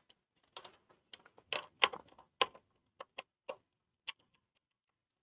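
Light, irregular plastic clicks and taps from handling the small removable jerry can and tools on a 1/12 scale RC scale jeep, stopping about four seconds in.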